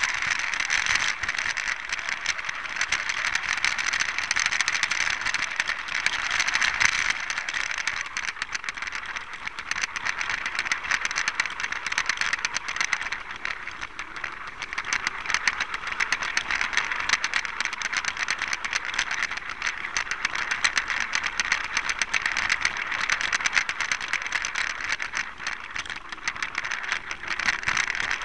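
A high-speed LEGO train running on plastic LEGO track, heard from on board: a steady, dense rattle and clatter of its wheels and cars that eases a little twice.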